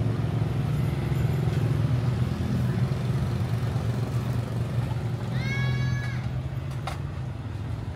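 Outdoor street ambience with a steady low motor hum. A short pitched tone comes in about five and a half seconds in and lasts under a second.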